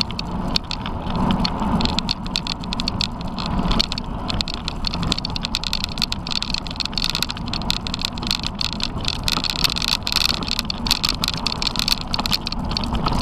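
Vehicle-mounted camera riding over a rutted dirt track: a steady crunch and rattle of tyres on dry dirt and gravel with a constant rumble of wind on the microphone, without any clear engine note.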